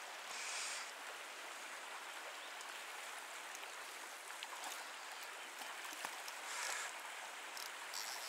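Steady rushing of a shallow, clear river flowing over stones, with a few faint ticks and brief swells in the hiss.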